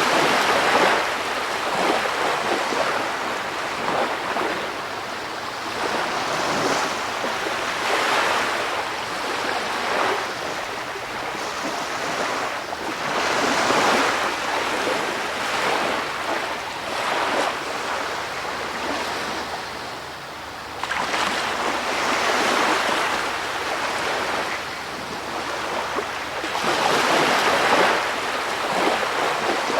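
Ocean waves breaking and washing in, a steady hiss of surf that swells and eases every few seconds.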